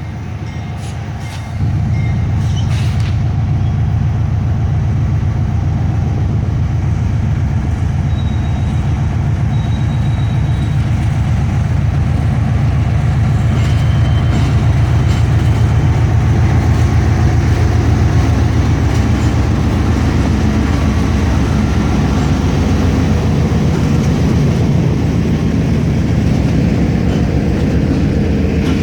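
Diesel-electric locomotive engine running with a loud, steady, deep rumble that steps up sharply about a second and a half in.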